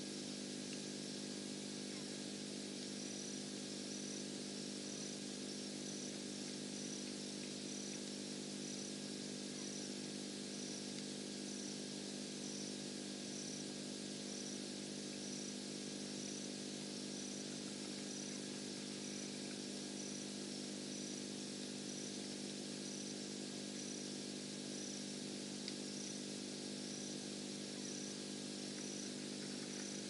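Night ambience: a cricket chirping in a steady, regular rhythm, a little more than one chirp a second, over a constant low mechanical hum.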